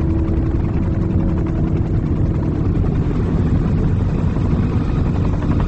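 Military helicopter flying, a steady loud chop of rotor blades over a low engine rumble.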